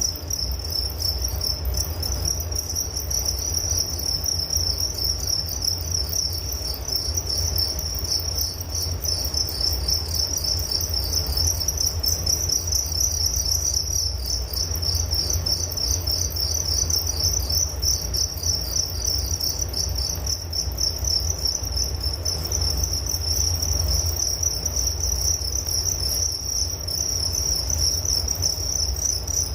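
Crickets chirping continuously in a dense, fast-pulsing high trill, over a steady low rumble.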